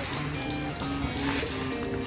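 Background music with a beat, notes moving in steps.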